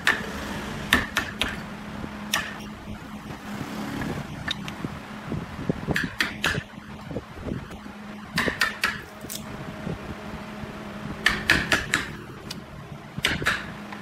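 Wooden mallet striking a chisel to chop wood out of the hollow of a turned wooden vessel: quick runs of a few sharp knocks every two to three seconds, over a steady low hum.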